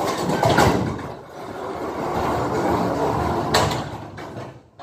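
Side curtain of a curtainsider trailer being slid open along its rail, the runners rattling along the track, with a sharp knock about three and a half seconds in; it stops just before the end.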